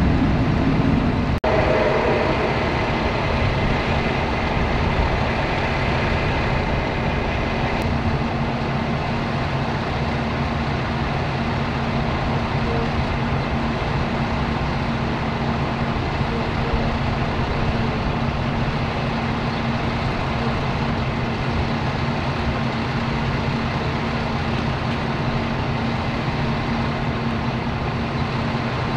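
A large vehicle engine idling steadily, with a constant low hum. There is a brief break with a click about a second and a half in.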